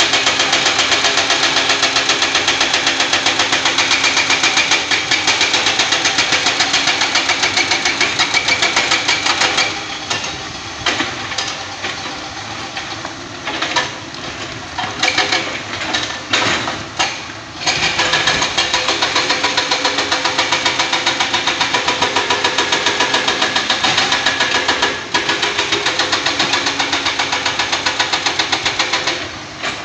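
Diesel engines of hydraulic excavators running as they dig rock, with a rapid, even pulsing. About a third of the way through the sound drops and turns uneven for several seconds, then the steady pulsing returns.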